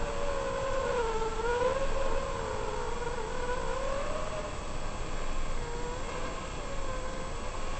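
FPV drone's electric motors and propellers whining in flight, the pitch rising and falling with the throttle, over a steady rush of air noise.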